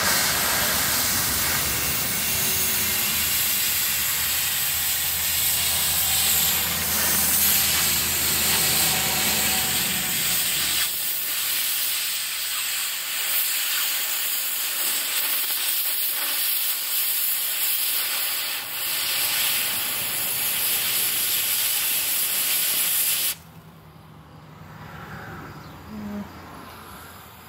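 Oxy-acetylene cutting torch hissing steadily as it cuts through a steel pallet-racking upright, with a low rumble under the hiss for the first ten seconds or so. The hiss cuts off suddenly near the end.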